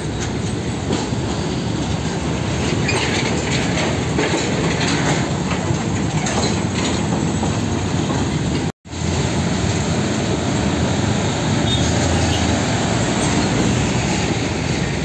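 Container trucks passing close by in traffic: diesel engines running and the trailers rattling and clanking, with metallic squeaks in the first half. The sound drops out briefly about nine seconds in, then another container truck goes by.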